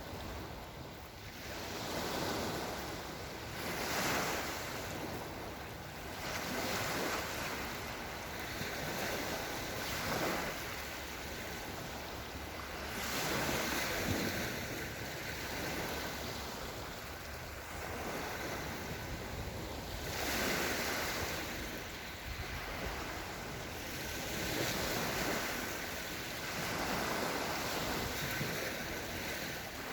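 Small Black Sea waves rolling gently onto the shore, a rushing wash that swells and fades every two to four seconds.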